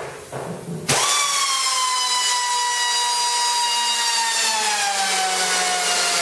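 A few handling knocks, then about a second in a small cut-off wheel grinder starts with a loud, high whine. It is cutting into the steel ammo can, and its pitch slowly drops as the wheel bites into the metal under load.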